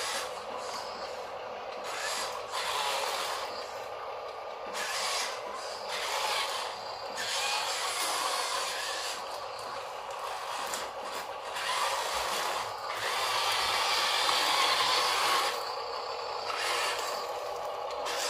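Huina remote-control dump truck's electric drive motor and plastic gearbox whirring as it drives over sandy ground, getting louder and softer as it moves.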